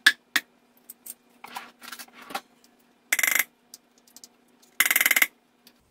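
A spoon scraping and knocking Greek yogurt off a plastic measuring cup: scattered clicks, then two short rattling bursts of quick taps, about three and five seconds in.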